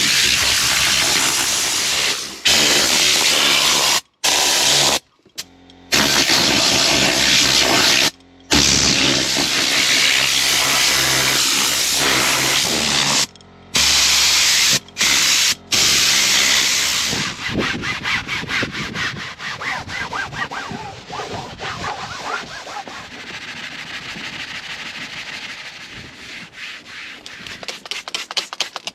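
Car detailing work: a loud spraying hiss in several abruptly cut stretches, then quick repeated scrubbing strokes of a brush or towel over a surface.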